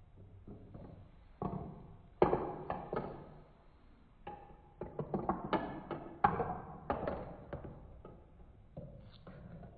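Marbles running through a plastic Trix Tracks marble run: a busy run of irregular clicks and clacks as they roll, drop and knock against the track pieces, loudest about two seconds in and again around six seconds, thinning out near the end.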